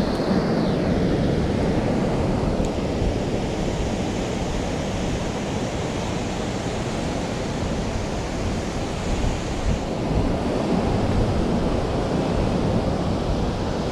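Steady rush of river water pouring below a dam, with gusty wind buffeting the microphone.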